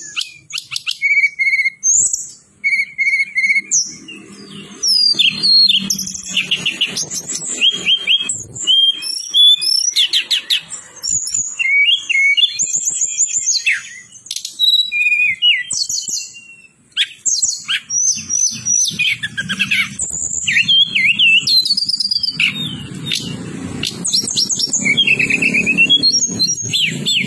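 Tledekan gunung songbird singing a fast, varied song of high whistles, sweeping notes and rapid trills, with short pauses between phrases.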